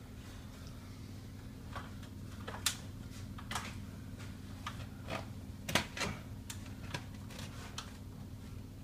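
Scattered light knocks and clicks from hand work on the beam and ladder, two sharper knocks standing out about two and a half and six seconds in, over a steady low hum.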